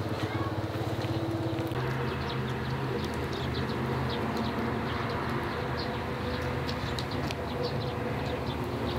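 Small birds chirping in many short, high notes over a steady low hum, which grows louder and fuller about two seconds in.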